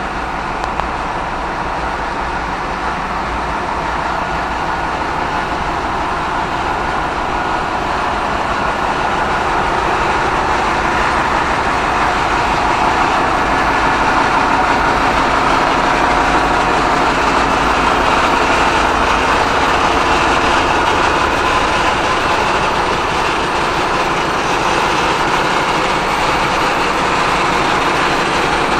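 Ship engine-room machinery running: a loud, steady, dense drone with many steady tones in it, growing a little louder over the first half.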